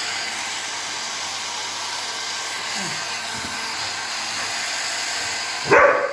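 Hair dryer blowing with a steady rushing noise; near the end its noise drops sharply and a dog gives one short, loud bark.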